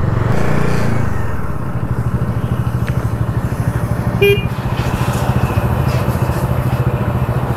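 Bajaj Dominar 400's single-cylinder engine running steadily while the motorcycle is ridden. A short beep sounds once about four seconds in.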